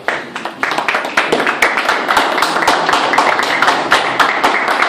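Applause from a small crowd in a room: many quick, overlapping hand claps that break out all at once and keep going steadily.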